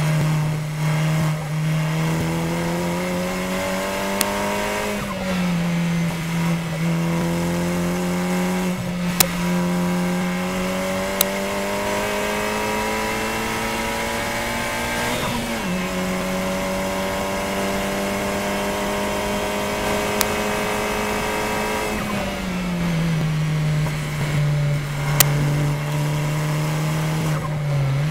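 KTM X-Bow race car's turbocharged four-cylinder engine heard from the cockpit at full throttle, its pitch climbing through the gears with quick upshifts about five seconds in and about halfway. Near the end the throttle comes off and the engine note falls in steps as the car brakes and shifts down. A few sharp clicks sound over it.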